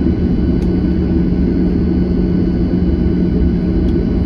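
Steady cabin noise of an airliner taxiing after landing: a low rumble from the jet engines with a constant low hum.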